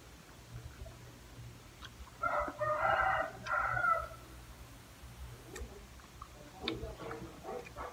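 A rooster crowing once, about two seconds in, lasting under two seconds.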